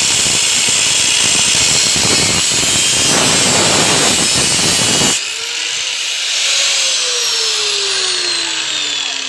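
Angle grinder with a cut-off disc cutting through the steel shell of an air-conditioner compressor for about five seconds. It is then lifted off the metal, and its whine falls steadily in pitch as the disc winds down.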